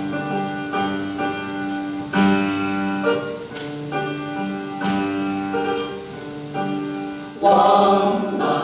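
Instrumental introduction to a song: keyboard playing sustained piano-like notes and chords. Near the end the music grows louder and fuller as a chorus of singers comes in.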